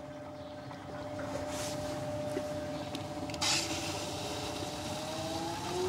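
BWD5-40 stainless steel variable speed drive booster pump running with a steady motor whine, then speeding up with a rising whine near the end as it spools up toward a newly set 4 bar. A brief rush of noise about three and a half seconds in.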